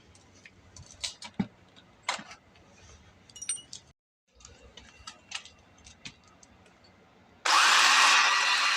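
A few light clicks and rattles of the saw being handled, then about seven and a half seconds in a 20-volt Bauer cordless pole saw switches on and runs its freshly replaced chain at full speed with a loud, steady motor whine.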